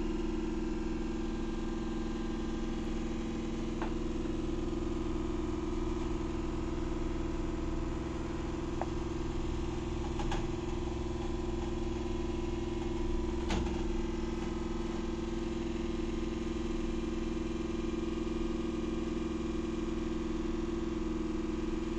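Steady machine hum of a running motor, with a few faint clicks around the middle.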